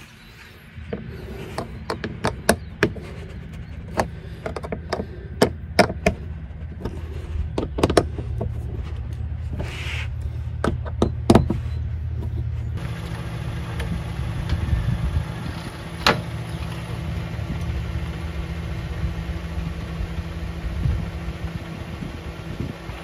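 Irregular sharp clicks and knocks of hands fitting the plastic front wheel-well liner of a 2021 Toyota RAV4, over a steady low hum. About halfway through the clicks stop, and only the steady low hum remains.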